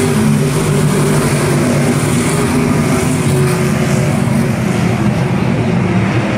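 A pack of IMCA stock cars' V8 engines running at race speed on a dirt oval, a loud steady drone of several overlapping engine notes.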